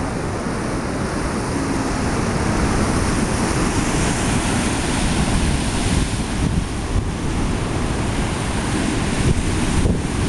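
Heavy surf breaking and washing over shoreline rocks, with wind buffeting the microphone in a steady low rumble.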